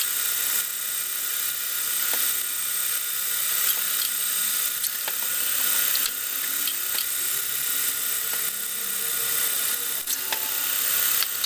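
A 3/8-inch twist drill in a machine spindle drilling a through hole in aluminum. The spindle runs with a steady high whine and hiss of cutting. A few light clicks come through, and the level dips briefly a few times as the feed eases.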